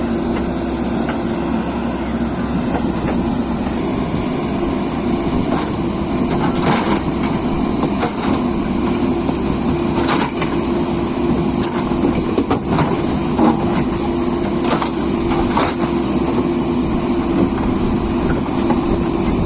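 Earthmoving machine's diesel engine running steadily, with scattered sharp knocks and clanks through the middle.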